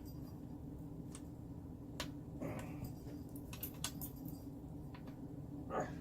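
A few sharp metallic clicks and short scrapes of chair-base bolts being tightened with a hand tool, over a steady low hum.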